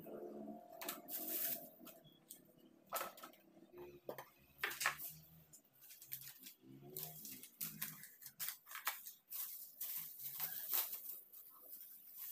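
Scattered clicks, taps and short rustles of groceries being handled: plastic bags crinkling and items set down against containers.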